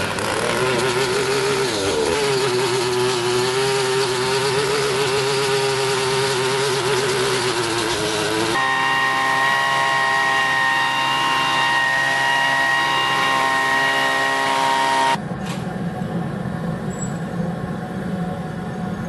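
Engine-driven machinery running steadily and loudly, with a wavering pitch in the first part. The tone changes abruptly about eight seconds in and again about fifteen seconds in, where it becomes quieter and lower.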